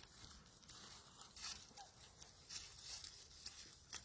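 Faint rustling with a few short, sharp crackles, from the recording phone being handled close to its microphone after it was dropped.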